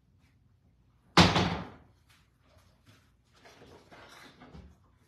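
A door slamming shut once, a sudden loud bang about a second in that dies away quickly.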